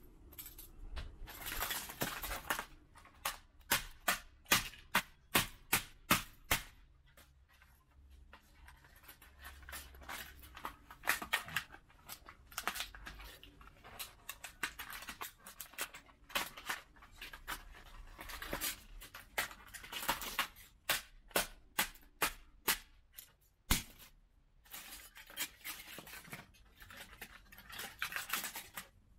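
Plastic shell of smashed DJI FPV goggles being cracked and broken apart: many sharp snaps and knocks with crackling and scraping between them, including a quick run of about eight snaps, two a second, a few seconds in.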